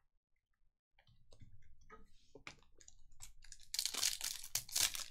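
Foil wrapper of a baseball card pack crinkling and tearing as it is opened by hand, faint crackles at first and loudest over the last second or so.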